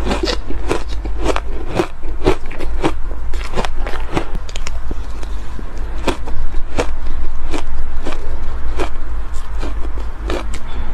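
Close-miked chewing of soft, powdery shaved ice: a quick, irregular run of crisp crunches, roughly two a second, over a steady low hum.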